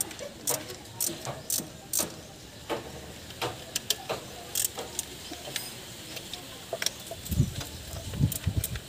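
Scattered metallic clicks and taps of a hand tool working the valve cover bolts and handling loose parts on an engine, with a few low knocks near the end.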